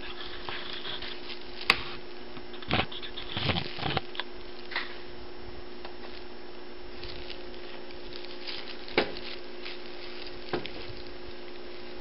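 Paper rustling and crinkling in scattered short bursts as a kitten squirms and paws on the sheets under it while being played with, with a few sharp clicks. A steady electrical hum runs underneath.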